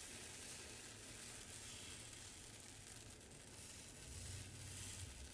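Faint sizzling of lmkhanfar (a spongy, baghrir-like Moroccan pancake) batter in a hot oiled pan as it is spread out with the back of a metal ladle.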